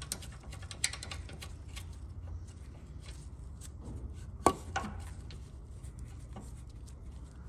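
Small metal clicks and taps of gloved fingers working a nut and bracket while fitting a car horn to its mount, with one sharp click about four and a half seconds in. A low steady hum runs underneath.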